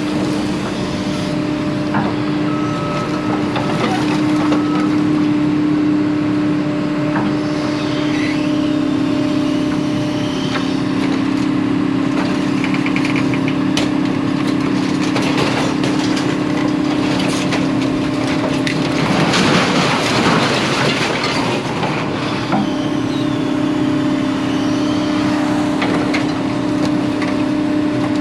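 An engine running steadily with a constant hum, with scattered knocks and clatter over it and a louder, noisier stretch about two-thirds of the way through.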